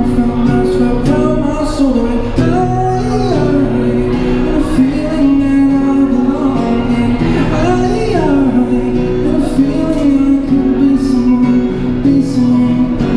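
A man singing a slow melody of long held notes that slide between pitches, over a strummed Yamaha acoustic guitar, both played through a microphone and a small Roland Cube Street EX street amplifier.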